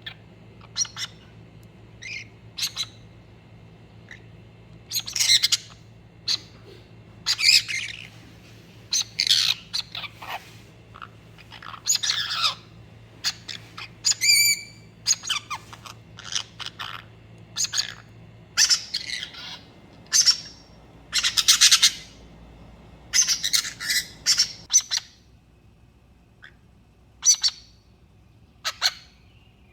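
Pet birds calling with short, harsh squawks and chirps, each a second or less, coming thick and fast through the middle of the stretch and thinning out near the end.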